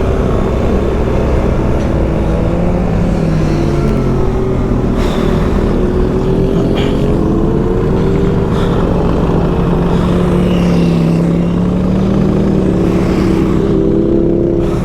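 BMW R1300GS boxer-twin engine running under way, its pitch drifting gently up and down with the throttle, over a steady rush of wind noise.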